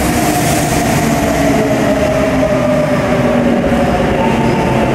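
Kintetsu electric train pulling into the station platform: a steady rumble of wheels on rails with a motor whine that slowly falls in pitch as the train slows.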